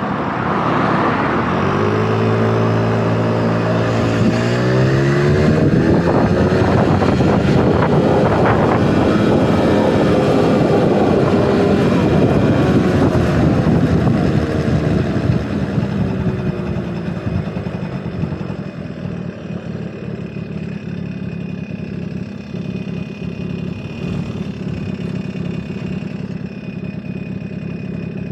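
Two-stroke engine of a Honda Motocompo scooter, big-bored to 65cc, revving up in pitch over the first few seconds as it pulls away, then running loud at speed. About two-thirds of the way through it settles to a quieter, steadier low note.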